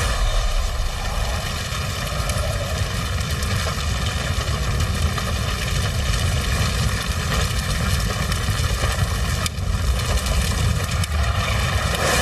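A large fire burning at the stake: a steady, loud rumbling rush with occasional faint crackles.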